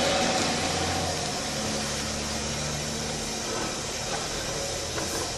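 An engine running steadily under an even hiss, its low tone shifting slightly about a second in.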